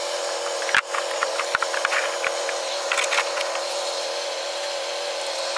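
A rubber mat being handled and scraped along a concrete floor under a car ramp: rubbing and scraping with a few sharp clicks and knocks in the first three seconds, over a steady hum.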